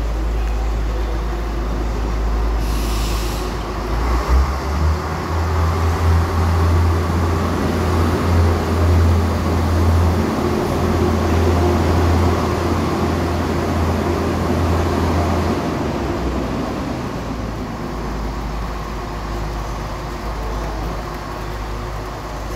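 Renfe diesel train's engine running with a deep, steady drone right beside the platform; the drone steps up in pitch and gets louder about four seconds in, then falls back around sixteen seconds. A short hiss sounds about three seconds in.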